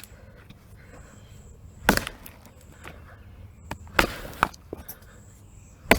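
Axe blows chopping into old pine root wood, three sharp strikes about two seconds apart. The middle blow trails off in a brief crackle of splintering wood.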